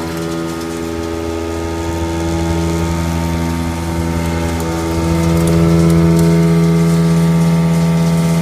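Kitamura HX400G horizontal machining center face-milling a block of 1045 cold-finished steel with a 2-inch, five-insert shell mill at 1000 RPM and 35 inches a minute. A steady pitched drone that gets louder about five seconds in.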